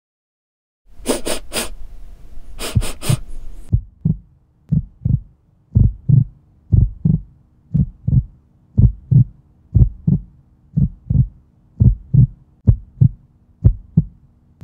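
Two sets of three quick, sharp dog sniffs. Then a heartbeat sound effect begins: a steady lub-dub about once a second over a low, steady hum.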